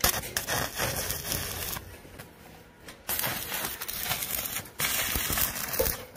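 Stick (shielded metal arc) welding: the arc at the electrode tip crackling and sizzling as the rod burns. It comes in three runs, dying down about two seconds in and again briefly near five seconds.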